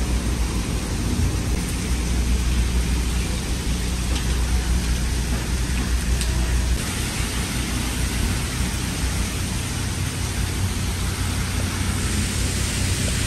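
Heavy rain pouring steadily, with a deep low rumble underneath that drops away about seven seconds in.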